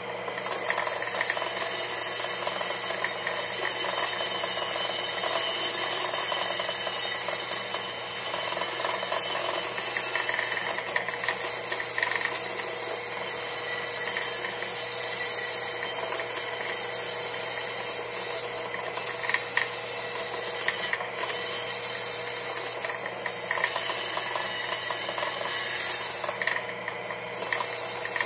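An old electric wire wheel running, its wire brush scouring a wheel rim clean: a steady harsh scraping hiss over the motor's hum. It starts about half a second in and dips briefly a couple of times late on, as the rim is moved against the brush.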